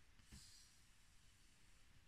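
Near silence: faint room tone, with one soft, brief rustle about half a second in.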